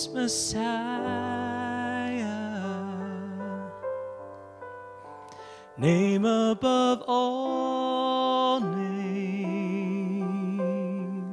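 Live worship band music: voices holding long notes with vibrato over acoustic guitars and keyboard, in two sung phrases with a quieter pause between them.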